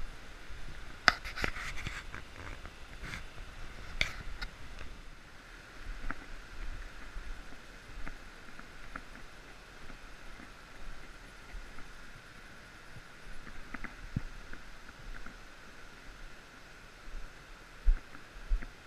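Scattered knocks, clicks and thumps from movement on a wooden treehouse deck, with camera handling noise, over a steady high-pitched drone.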